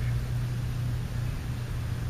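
A steady low mechanical hum with a faint hiss over it.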